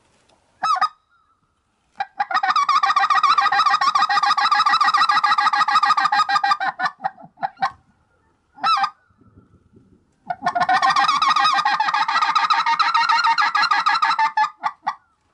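Hunter's hand-blown waterfowl call, close and loud: a single note, then two long runs of rapid chattering notes of about four to five seconds each, with a few single notes between them, calling to ducks working the decoys.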